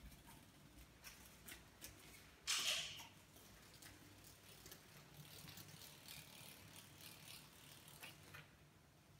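Kittens pouncing at a moth against a sliding glass door: light scattered taps and clicks, and one brief loud rattle of the door or its frame about two and a half seconds in.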